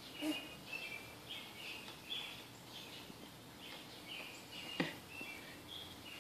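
Small birds chirping faintly over and over, with a steady hiss of rain behind them. One sharp click comes about five seconds in.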